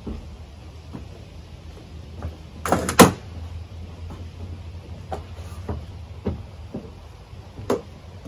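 Wooden knocks and clunks as peeled logs are handled on the log futon frame, loudest a quick double clunk about three seconds in, with lighter knocks scattered through.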